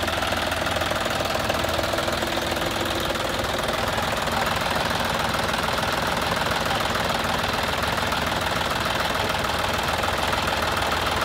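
Tractor engine running steadily as a tractor rolls along a dirt track on steel cage wheels.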